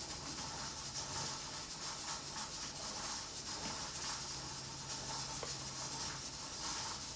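Spatula scraping thick pecan batter out of a glass mixing bowl into a loaf pan, soft and faint, over a steady hiss.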